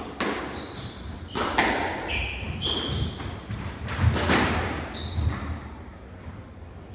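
A squash rally: the ball is struck by rackets and hits the court walls in about six sharp thuds, the last about five seconds in, with short high squeaks of court shoes on the wooden floor between the shots.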